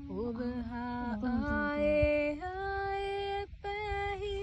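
A woman singing unaccompanied in long, held notes, her pitch stepping up about halfway through, with a brief pause near the end.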